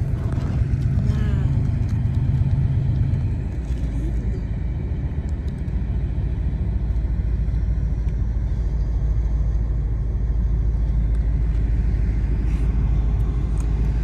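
A loud, steady low rumble that sits almost entirely in the bass and drops lower about three seconds in.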